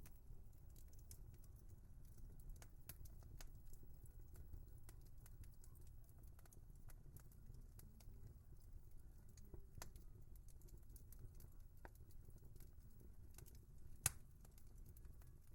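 Wood fire crackling softly: scattered small pops and ticks over a low steady rumble, with one sharp, louder pop near the end.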